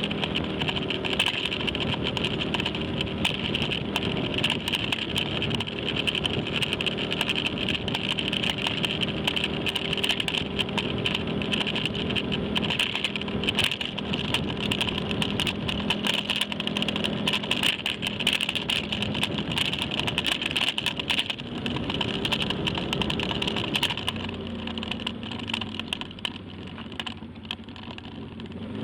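Motorcycle engine running at low speed, with a steady high hiss and many small clicks and crackles over it. From about three quarters of the way in it gets quieter and lower, as the bike slows.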